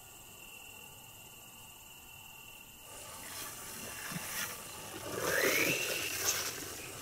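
Crickets chirring steadily as one high tone. About three seconds in this gives way to louder rustling with a few knocks, and a tone that rises and then holds, about five seconds in.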